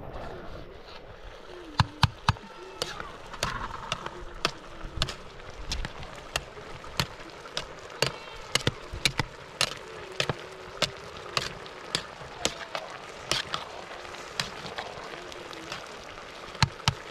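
A series of sharp knocks, irregularly spaced at about one or two a second, over a steady low background.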